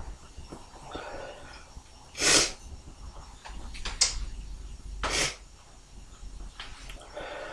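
A person sneezing twice, about three seconds apart, each sneeze a short loud burst.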